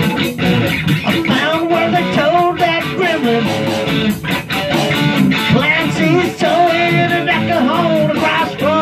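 Rock jam: guitar playing a groove over a steady beat, with a wavering lead line bending up and down above it.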